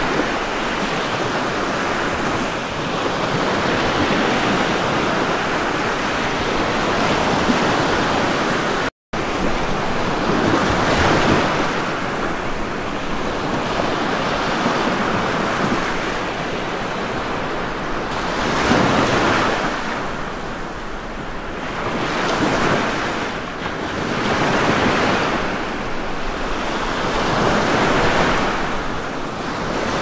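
Ocean surf: a steady wash of breaking waves that swells and ebbs every few seconds, with a momentary dropout about nine seconds in.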